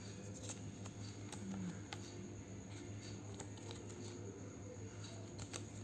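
Faint rustling and crinkling of a small folded paper user-guide leaflet being handled and unfolded by hand, with scattered light paper clicks.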